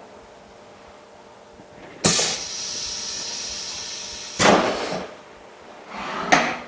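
OCA vacuum laminator's pneumatics venting air. A sudden hiss about two seconds in holds steady for about two seconds, then two shorter blasts of air follow, the second near the end, as the laminating cycle finishes.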